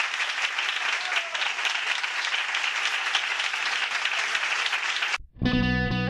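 A crowd applauding, a dense clatter of clapping that cuts off abruptly about five seconds in. Just before the end, guitar-led music starts.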